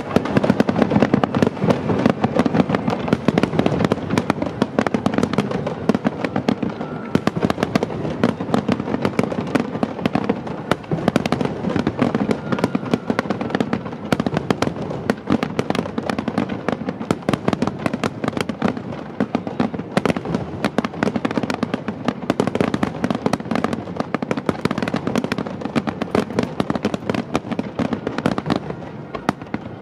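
Finale barrage of aerial fireworks, a starmine: shells bursting in rapid, unbroken succession, a dense run of bangs and crackles.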